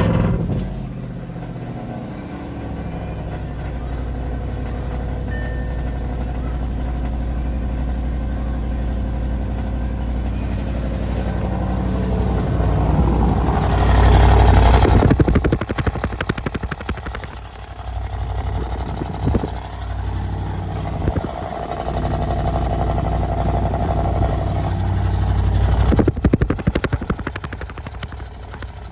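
A 2012 Audi RS5's 4.2 FSI V8 starts up cold and runs at a fast idle, carrying a metallic noise that the owner reports lasts until the idle settles back to 800 rpm. The cause is unknown. The engine noise is loudest about halfway through.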